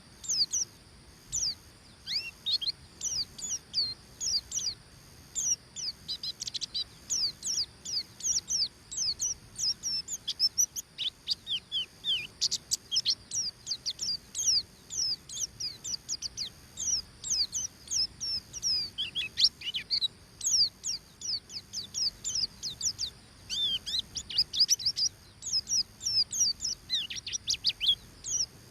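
White-eye (pleci) singing a rapid ngeriwik twitter: long runs of quick, high, mostly falling chirps, several a second, broken by short pauses.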